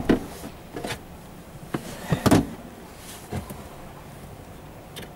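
A few scattered knocks and clicks of hands handling the plastic trim in a Toyota Prius's cargo area, the loudest about two and a half seconds in; after about three and a half seconds only a low background remains.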